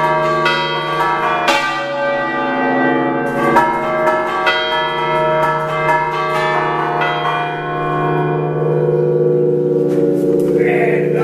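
A six-bell church bell concerto in D, cast by the Picasso foundry, rung by hand close up in the belfry in the Ligurian "a ducale" style. Irregular strokes come every half second to two seconds, each leaving long ringing tones that pile into a sustained hum. The strokes thin out in the last few seconds while the hum carries on.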